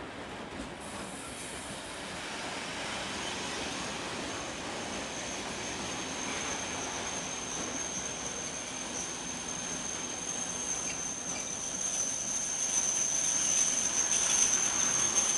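Freight train of open box wagons rolling past, a steady rolling rattle of steel wheels on rail. A high, steady metallic squeal from the wagons' running gear starts about a second in and grows loudest near the end.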